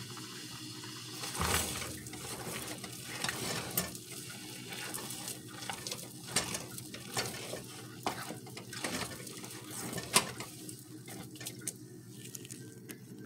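A stirring utensil scraping and knocking against a metal saucepan as thick oat-flour kenkey dough is stirred, in irregular strokes that thin out near the end.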